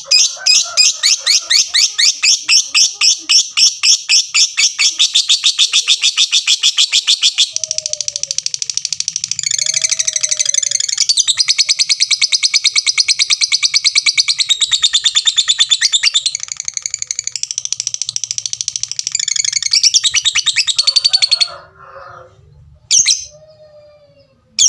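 Lovebird singing: a run of sharp ticks ('tik tik tik') comes faster and faster for about seven seconds and runs straight into a long unbroken chattering trill ('ngekek') of about fourteen seconds, which stops suddenly. Two short calls follow near the end. This ticking-into-long-ngekek song is the kind that lovebird fanciers prize.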